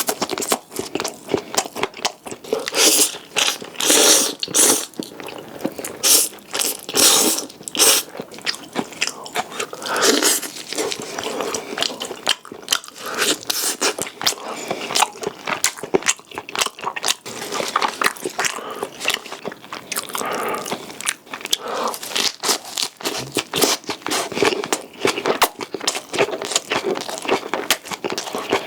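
Close-miked eating sounds: a person biting and chewing, with dense wet crunching and crackling throughout.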